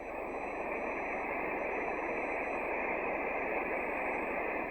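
Steady hiss of band noise from an HF transceiver's receiver on 12-metre SSB, heard through the radio's narrow voice passband while no station is transmitting.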